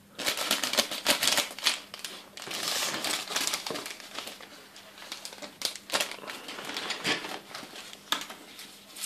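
Clear plastic packaging bag crinkling and rustling as it is opened and handled, with scattered sharp crackles and clicks; busiest in the first few seconds, then sparser and softer.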